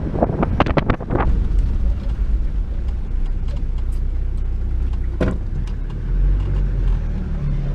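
Safari four-by-four driving slowly on a dirt track: a steady low engine and road rumble. A quick cluster of knocks and rattles comes in the first second, and one more sharp knock about five seconds in.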